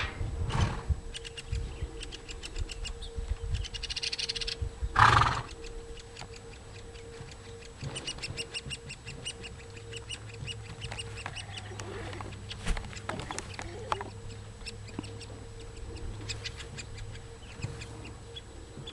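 Woodpecker nestlings calling: a rapid, rhythmic chattering of many short high notes, with a louder burst about five seconds in.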